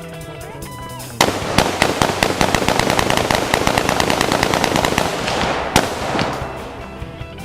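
Background music, broken about a second in by a loud run of rapid, crackling bangs, several a second, that lasts about five seconds and fades away before the music comes back.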